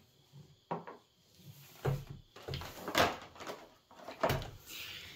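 Handling noises: a few separate knocks and clunks as objects are moved about, picked up and set down.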